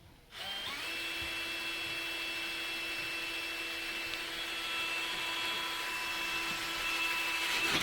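Power drill spinning up with a short rising whine, then running steadily as the bit bores through a porch column, stopping abruptly at the end.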